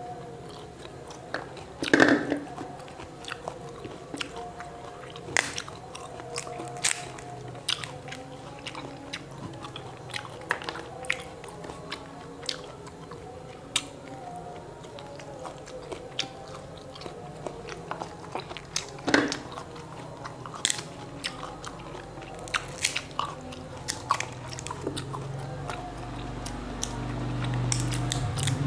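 Close eating sounds of matoa fruit: chewing and biting, with many sharp cracks and clicks as the thin brittle shells are broken open by hand. The loudest cracks come about two seconds in and again about nineteen seconds in.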